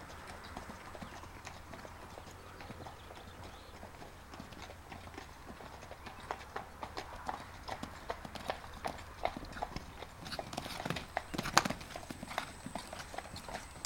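Hoofbeats of a ridden horse cantering on a sand arena, a run of soft irregular knocks that grows louder as the horse comes close, loudest about a second and a half before the end.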